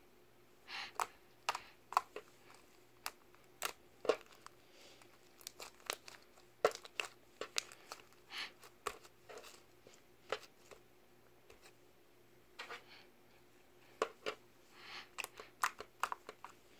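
Slime being squeezed, kneaded and pulled apart by hand: irregular sticky pops, clicks and short crackling, tearing sounds.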